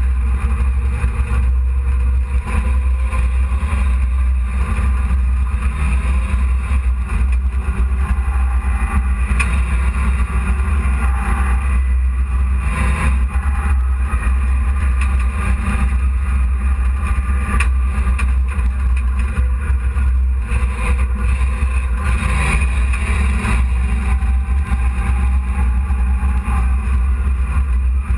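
Dirt-track hobby race truck's engine running under way, heard from inside the cab with a heavy, constant low rumble.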